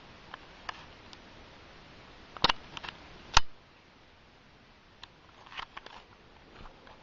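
A few sharp clicks and taps against a quiet room. The two loudest are a little under a second apart, about two and a half seconds in, and a small cluster follows near the end.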